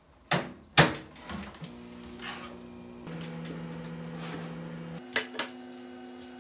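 Countertop microwave oven: two sharp clacks as its door is handled and shut, then the oven running with a steady hum. Two lighter clicks come about five seconds in.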